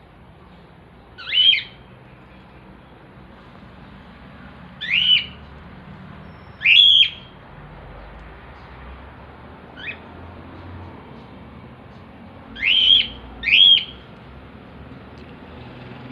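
Lovebirds giving short, shrill calls: five loud ones, the last two close together, and a fainter one in the middle.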